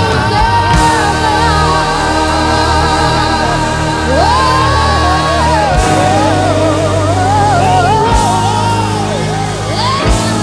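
Live worship band music with sustained chords and a steady low end. A singer's voice carries long held, wavering melodic lines over it.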